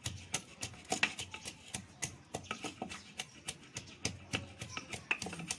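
Long wooden pestle pounding food in a tall wooden mortar: a run of dull, irregular knocks, about three or four a second.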